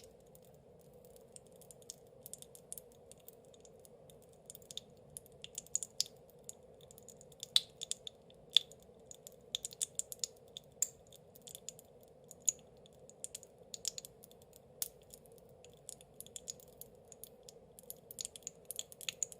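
Pachipachi Panic popping candy crackling in the mouth: a dense, irregular run of sharp little pops and snaps, busiest in the middle.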